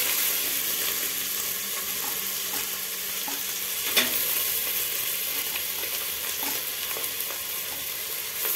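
Chopped onions sizzling steadily in hot oil and ghee in an aluminium pressure cooker as they brown, with a single sharp knock about four seconds in.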